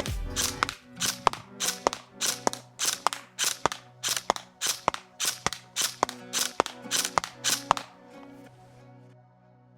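ASG Scorpion EVO 3 A1 Ultimate Boost airsoft electric gun firing single shots in a quick steady series, about two to three a second, stopping about eight seconds in. Background music plays underneath.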